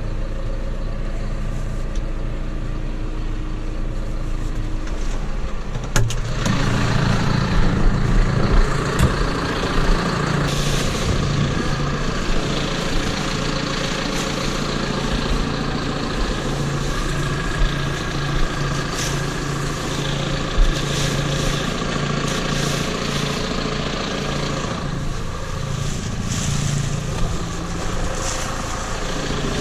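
Tractor engine running steadily, which picks up to a higher, louder pitch about six seconds in after a single knock, then holds there with a low pulsing note.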